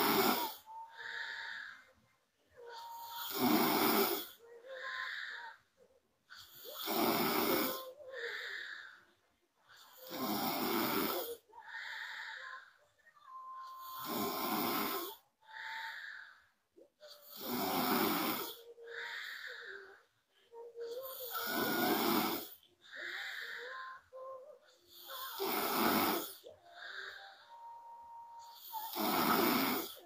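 A young woman snoring in a steady rhythm: a loud snore about every three and a half seconds, each followed by a softer breath, with a faint whistling tone between them.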